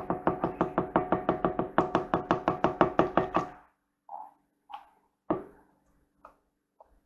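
Rapid, even tapping, about seven taps a second, as baking powder is tapped out of its packet into a stainless steel mixing bowl. The tapping stops about three and a half seconds in, followed by a few light, scattered knocks.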